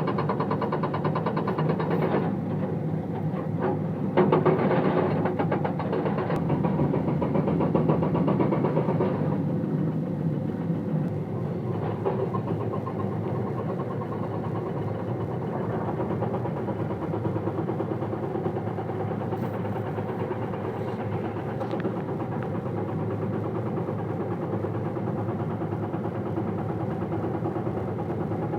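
Komatsu excavator's diesel engine running, louder and busier for about the first nine seconds, then settling to a steadier, quieter run.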